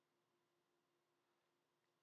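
Near silence, with only a very faint steady hum.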